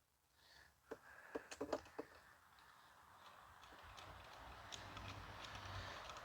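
A few faint clicks and taps of a screwdriver being fitted to a Torx T20 screw in a plastic vacuum housing. These are followed by a faint, steady low noise that slowly grows louder.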